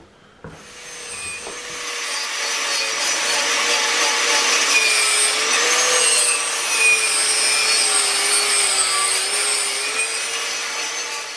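Angle grinder with a wire cup brush scouring an old steel-tube seat bracket clean: a steady motor whine under a harsh scratching hiss, building up over the first second or two, its pitch wavering slightly as the brush works the metal.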